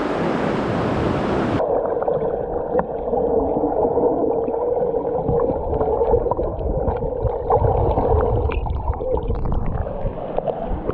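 Rushing river water; about a second and a half in, the sound changes abruptly to muffled gurgling and bubbling water with small scattered clicks.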